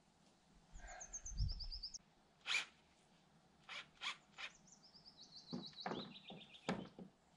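A songbird sings two quick trilled phrases, each a run of rapid notes stepping down in pitch. Under it come a low thud and then a string of sharp knocks as someone climbs a ladder.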